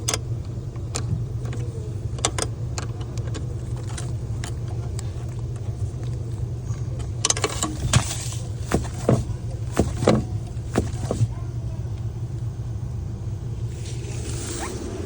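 A car engine running steadily at idle, with scattered metallic clicks and knocks that are thickest from about seven to eleven seconds in.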